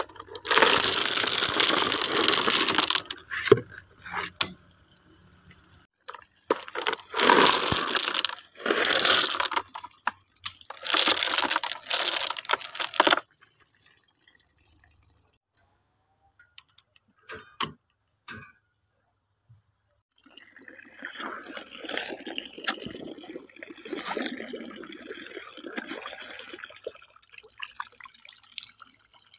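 Rocks poured into a plastic bucket of gravel in three pours of two to three seconds each, then a few single stones knocking down. From about two-thirds of the way in, water splashes steadily into the pond.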